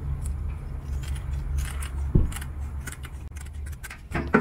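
Kitchen shears clicking and snipping as a rockfish is cut on a stainless steel cleaning table: a scattered run of sharp metallic clicks, the loudest about two seconds in and another near the end.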